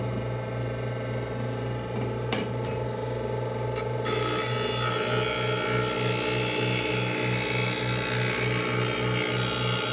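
Skate-sharpening cross grinder running with a steady motor hum; about four seconds in, a rusted figure skate blade is pressed against the spinning wheel and a harsh grinding hiss starts and carries on as the blade makes a pass.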